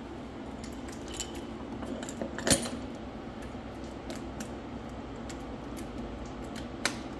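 Light clinks and taps of the coolant vacuum's suction hose and fittings being handled, with a sharper knock about two and a half seconds in and another near the end, over a steady low shop hum.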